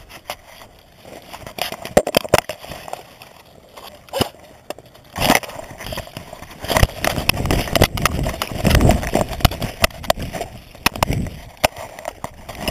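Scattered sharp cracks and clacks, typical of airsoft rifles firing and handling, with a louder stretch of crunching, rumbling movement noise in the middle.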